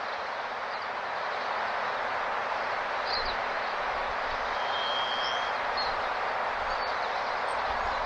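Steady rushing outdoor noise with a few brief high bird chirps from about three seconds in. A thin whistle is held for about a second near the middle, and low rumbles come and go in the second half.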